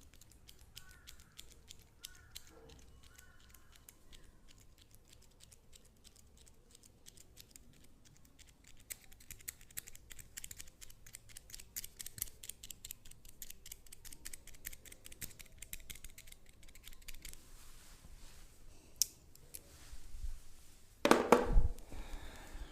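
Rapid, dry clicking and crackling from a massage worked close to the microphone, thickest in the middle of the stretch. A sudden loud thump comes near the end.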